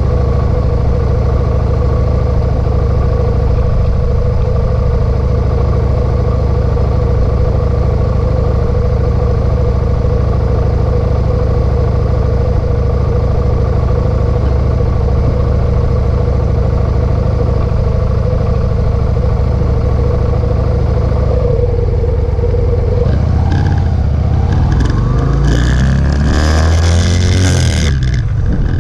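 Motorcycle engine idling steadily at a stop, then revving and accelerating away about 23 seconds in, rising in pitch through the gears. Wind buffets the microphone once it is moving.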